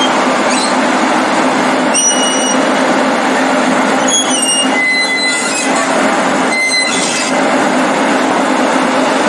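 Steel crawler tracks of a heavy tracked machine grinding and clanking over a hard concrete floor with a metallic-aggregate topping, over a steady low machine hum. Brief high metal-on-metal squeals cut in about two seconds in, again around four to five seconds, and near seven seconds.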